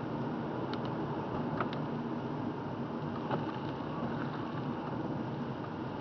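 Steady road and engine noise of a car driving, heard inside the cabin, with a few faint sharp ticks.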